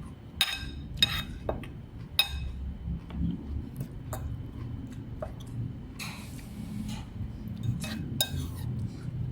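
Dishes and utensils clinking: a few sharp, ringing clinks near the start and a couple more near the end, with a brief hiss about six seconds in.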